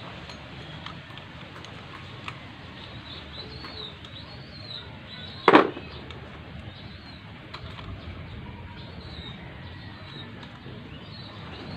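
Birds calling over a steady background hum. There are faint small clicks and one sharp clack about halfway through, from hand work on the valve rocker arm adjuster of a small motorcycle engine's cylinder head.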